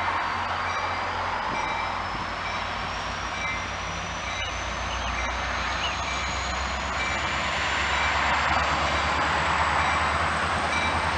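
Metra commuter train running through the station: a steady, dense rumble and rail noise, with a faint high whine slowly rising in pitch.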